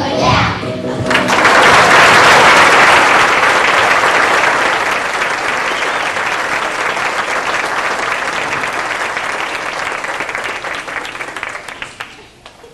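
Audience clapping loudly after a song, dense and steady, slowly thinning and dying away near the end. The last notes of the children's singing and music fade out just before the clapping starts.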